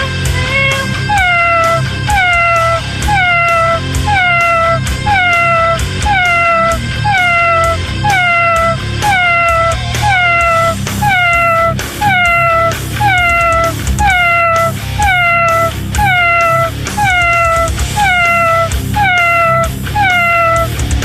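A domestic cat meowing over and over, about once a second, each meow a short call falling in pitch and all of them alike, over background music with a steady beat.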